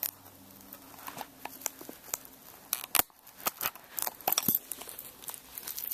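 Scissors and plastic packaging being handled while the package is opened: scattered sharp clicks and crackles that grow denser in the second half.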